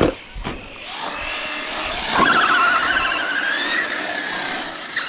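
Radio-controlled buggy driving fast on an asphalt track: a couple of knocks at the start, then a high motor whine whose pitch wavers up and down with the throttle, loudest in the middle.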